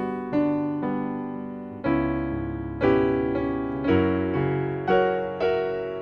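Electronic piano playing a slow jazz ballad accompaniment between sung lines: chords struck about once a second, each left to ring and fade, with deeper bass notes joining about two seconds in.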